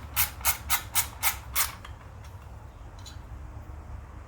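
A quick run of about six sharp mechanical clicks, roughly four a second, while the mower's drive cable and its housing are being fitted; then only a faint low hum.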